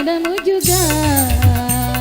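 Dangdut music with a bending, ornamented melody line over bass and drums. The bass and drums drop out briefly and come back in with a steady beat about half a second in.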